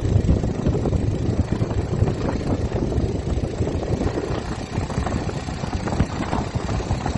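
Bajaj Pulsar 150 motorcycle's single-cylinder engine and exhaust running steadily, a rapid even pulsing with no revving.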